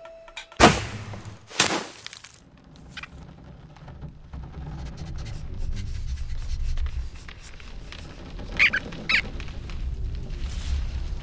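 Cartoon sound effects: two sharp hits in the first two seconds, then a low rumble that grows louder, with two short squeaks from the cartoon rodents about three-quarters of the way through.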